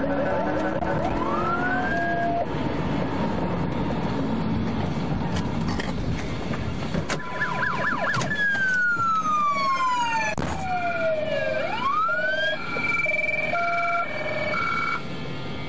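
Police car sirens, several overlapping, wailing up and down in pitch over a steady rumble. In the second half a long falling sweep gives way to a quick rise, and a two-tone hi-lo alternation joins in.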